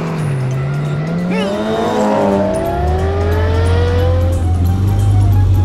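Cartoon race car engine sound effects: engines revving up, pitch climbing steadily over a few seconds, over a steady low drone.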